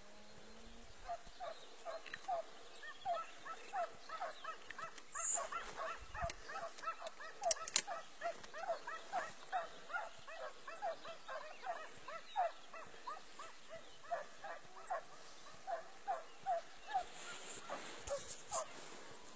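Hunting dogs giving tongue on a hare's trail: a long, fast run of short yelping cries, two to three a second. A sharp click about seven and a half seconds in.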